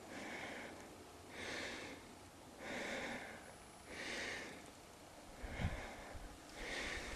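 A person breathing close to the microphone: soft, regular breaths about every second and a half. There is a low bump of handling noise a little over five seconds in.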